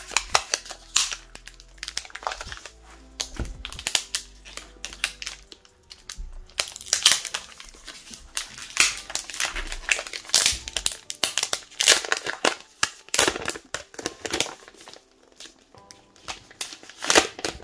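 Clear plastic shrink wrap crinkling and crackling as it is peeled off a smartphone box, in many irregular crackles that come thickest in the middle and again near the end.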